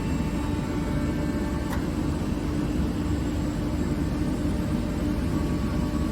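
Kaeser ASK 27 15 kW rotary screw air compressor running steadily under load, a constant low drone with a steady hum, as it pumps air into a 750-litre receiver tank toward 10 bar. A faint click about two seconds in.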